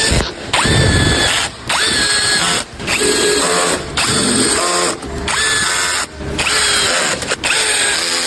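Power drill run in about eight short trigger pulls, each spinning up quickly to a steady whine and stopping after about a second.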